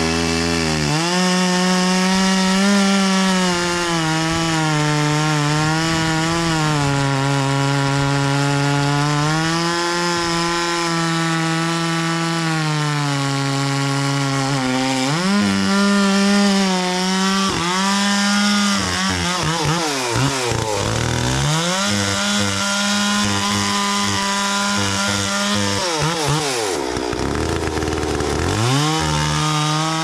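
Stihl 046 Magnum two-stroke chainsaw cutting through a Sitka spruce log at full throttle, its engine pitch sagging and recovering as the chain bites. A couple of times it is eased off and revved back up, and near the end it drops almost to idle before climbing back up into the cut.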